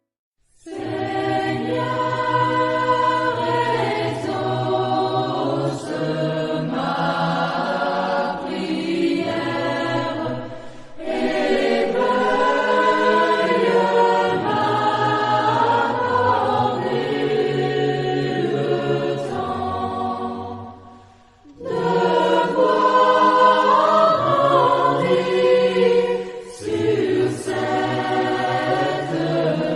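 Choir singing, in three long phrases with short breaks about 11 and 21 seconds in, starting after a brief silence.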